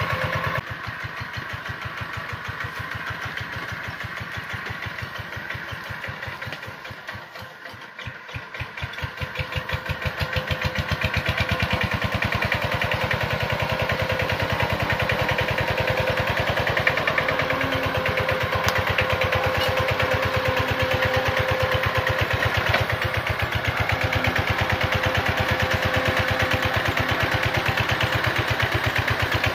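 Kubota K75 two-wheel tractor's single-cylinder diesel engine running with an even beat while pulling a loaded coconut trailer. It fades briefly about a quarter of the way in, then grows louder as the tractor comes close and stays loud.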